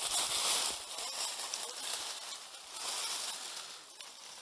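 Rustling of leaves, brush and clothing as someone moves and crouches through dense undergrowth close to the microphone, loudest in the first second or so.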